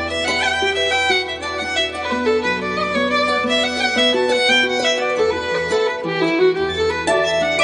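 Background instrumental music: a melody of held, stepping notes over a steady low accompaniment.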